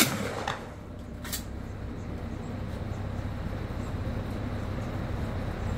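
A single shotgun shot right at the start, then two sharp clicks within the next second and a half. After that, only a steady low rumble.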